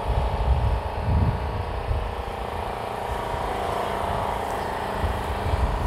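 A steady mechanical hum made of several held tones, with gusts of wind rumbling on the microphone, strongest near the start and again near the end.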